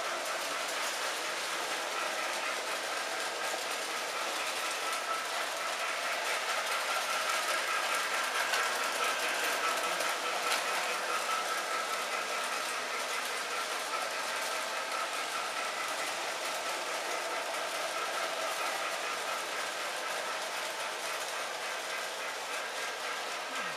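Lionel O-gauge model trains running on three-rail tubular track: a steady whir of the locomotive motors with the wheels clattering over the metal rails, a little louder for a few seconds around the middle as a train passes close by.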